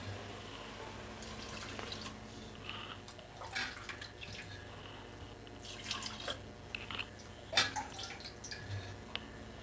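Water poured in short splashes from a tumbler into a pressure cooker of mutton pieces, dripping and splashing at irregular moments, with a few sharp clicks.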